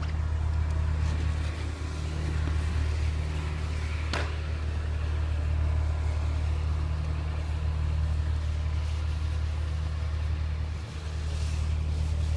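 Steady low hum and rumble while riding a Segway through snow, with a brief click about four seconds in.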